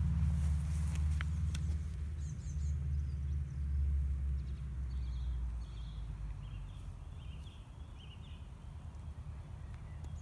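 Small birds chirping now and then over a low rumble that fades away over the first six seconds.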